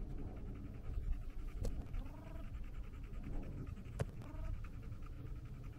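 Wind rumbling on the microphone in an open field. Over it come a few faint, short cries that bend up and down in pitch, and two sharp clicks, about a second and a half and four seconds in.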